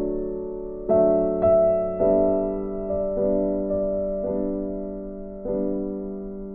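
Background piano music: soft, slow chords struck about once a second, each left to ring and fade.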